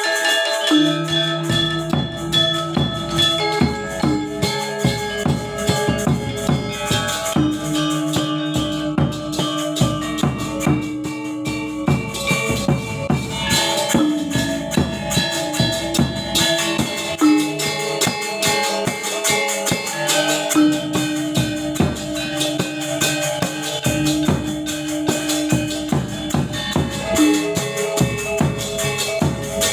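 Balinese gamelan gong ensemble playing in rehearsal: struck bronze instruments and drums in a fast, dense rhythm over sustained ringing tones.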